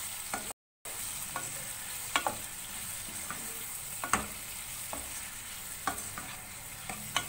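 Raw mango slices and spices sizzling in hot oil in a pan as they are stirred with a spatula, with a few sharp scrapes and knocks of the spatula against the pan. The sound cuts out for a moment about half a second in.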